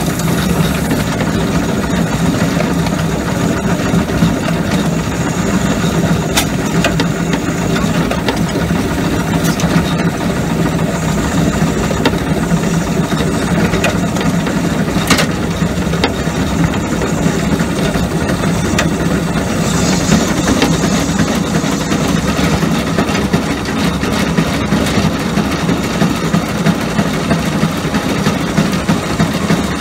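Miniature steam locomotive running steadily along the track, heard from its cab: a continuous rush of running noise from the engine and wheels on rail, with a few sharp clicks.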